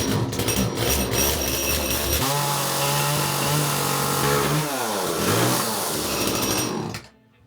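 A small engine, chainsaw-like, running steadily at high revs for a couple of seconds, then its pitch falls away as it slows. The sound cuts off suddenly near the end.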